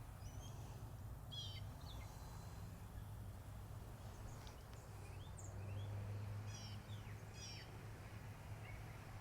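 Small birds chirping and twittering, short high calls scattered through, over a faint low steady hum.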